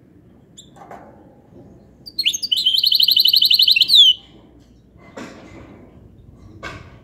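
Caged goldfinch hybrid singing goldfinch-style song: about two seconds in, one loud, fast trill of rapidly repeated high notes lasting about two seconds and ending in a falling slur, with a few fainter notes before and after.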